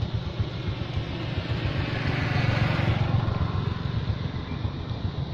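Motorbike engine running, with a steady low rumble and a swell that peaks about two to three seconds in and then eases.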